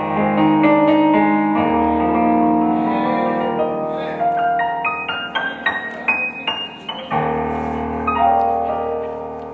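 Piano playing slow, held chords, with a quick run of high notes about halfway through.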